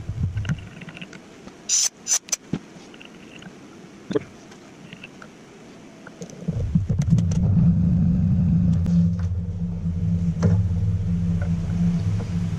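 A few sharp metallic clinks of hand tools being handled on a steel milling vise, then about halfway through a steady low machine hum starts and keeps running, much louder than the clinks.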